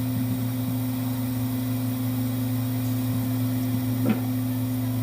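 A steady low hum from a small motor or fan, with a brief faint sound about four seconds in.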